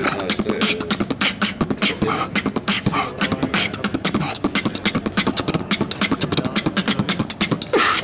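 A man beatboxing a fast, steady rhythm of mouth-made kick, snare and hi-hat sounds, several strokes a second.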